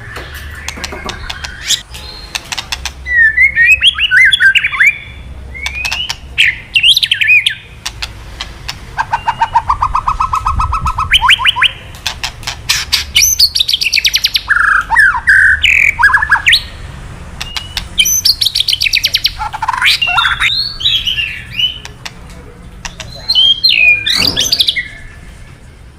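White-rumped shama (murai batu) singing in phrases with short gaps between them. It mixes runs of rapid crackling 'kretekan' rattles with whistled glides and a buzzy trill that climbs in pitch near the middle.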